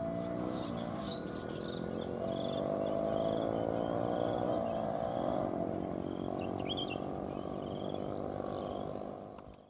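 A long passenger train's rear coaches rumbling over the rails as they pass and run away round a curve, while a level-crossing warning alarm sounds a steady tone on and off. Short high chirps sound above it, and everything fades out sharply near the end.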